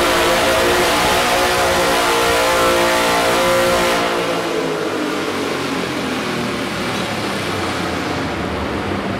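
Modified twin-cylinder garden tractor engine at full throttle, pulling a weight-transfer sled. About four seconds in it comes off the throttle as the pull ends, and the engine note drops and runs on at lower speed.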